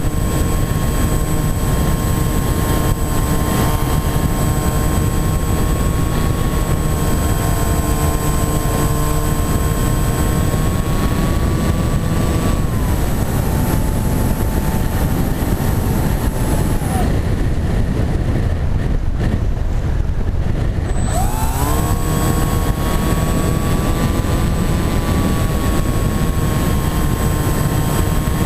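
Model flying wing's electric motor and propeller whining over heavy wind rush, heard from a camera on board. About twelve seconds in the whine drops as the throttle comes back, the motor is off for a few seconds of gliding with only wind noise, then the whine climbs back as power is reapplied.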